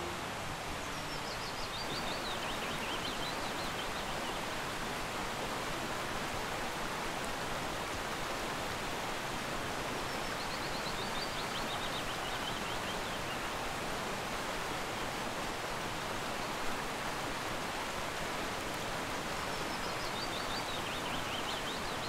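A fast stream rushing over rocks, a steady hiss of white water. A bird sings three times over it, each a short phrase falling in pitch, about nine seconds apart.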